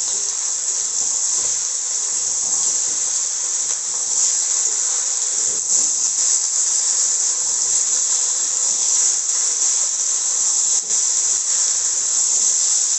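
Taro and potato pieces frying in hot oil in a wok: a steady, high sizzling hiss, with a few light clicks from the spatula stirring them.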